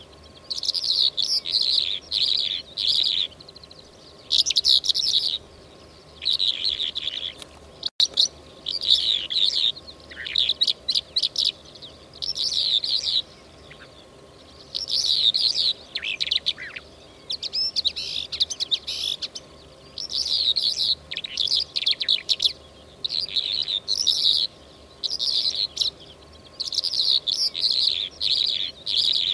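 Lark song: phrases of rapid, high chirping twitters, each about a second long with short pauses between, repeated over and over.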